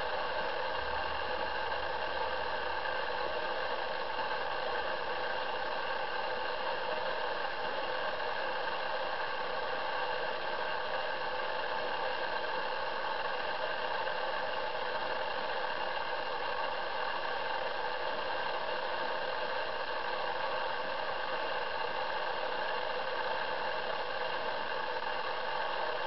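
Steady, even hiss with no bird calls or other distinct sounds standing out.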